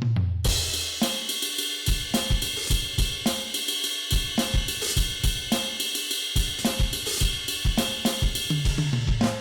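Donner DED-200 electronic drum kit playing its built-in drum sounds: a steady groove of kick and snare hits under continuous ringing cymbals. It opens with a short tom fill falling in pitch and ends with another tom fill.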